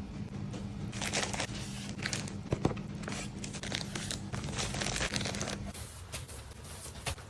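Packaging being handled: paper or plastic crinkling and tearing in irregular rustling strokes.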